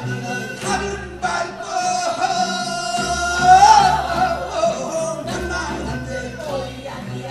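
Singing through stage microphones over backing music, part of a Korean sorigeuk (sung folk play); one voice holds a long wavering note about the middle.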